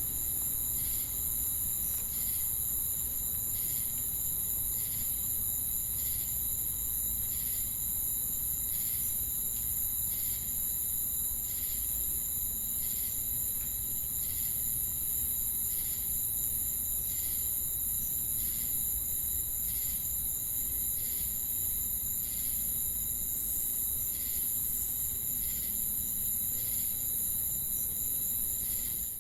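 Night-time insect chorus: a continuous high-pitched cricket trill, with another call pulsing about every second and a half and a faint low rumble beneath.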